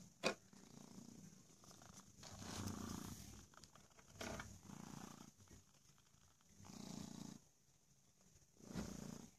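Domestic cat purring right at the microphone, the purr swelling and fading with each breath about every two seconds. A single sharp tap sounds just after the start.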